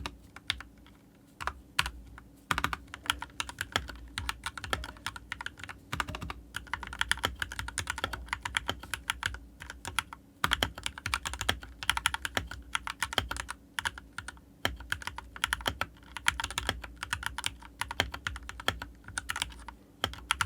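Typing on an RK68 mechanical keyboard with Gateron Milky Yellow linear switches: fast runs of key clacks, broken by short pauses.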